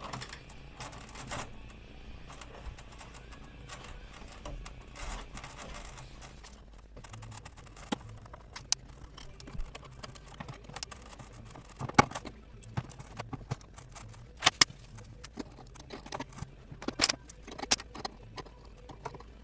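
Small metal parts and tools clicking and clinking irregularly as the propellers and prop shafts are taken off a radio-controlled model boat, with a few louder clicks in the second half.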